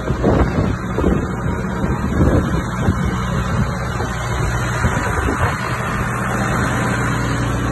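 Farm tractor's diesel engine running steadily, with a few knocks and rattles in the first three seconds.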